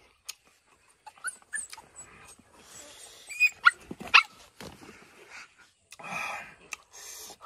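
A dog whining and yelping in short calls that slide up and down in pitch, the two loudest about three and four seconds in. Scattered clicks and smacks of someone eating with his hands lie underneath.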